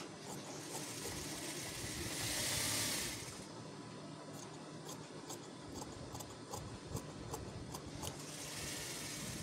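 Tailor's shears cutting through cloth on a cutting table: a run of small clicking snips as the blades close, with a longer rasping hiss about two seconds in and again near the end.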